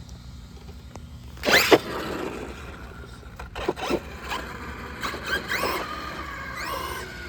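Electric motor of a 4S RC monster truck, the WOV Racing Blitzkrieg, whining in short throttle bursts, its pitch rising and falling several times, with the loudest burst about a second and a half in.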